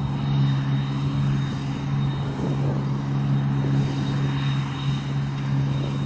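Deutz-Fahr 5690 HTS combine harvester running steadily under load while cutting barley: an even engine drone with a thin, constant high whine above it.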